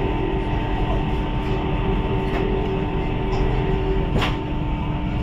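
Steady running noise heard inside the cabin of a CR400AF-Z Fuxing high-speed train: a deep rumble and hiss with two steady hums under it. A few short clicks come through, the loudest about four seconds in.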